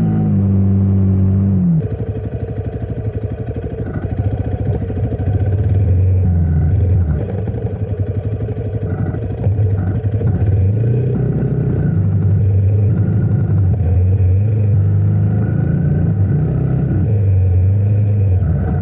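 Honda CRF motorcycle engine running under way, its note rising and falling with the throttle.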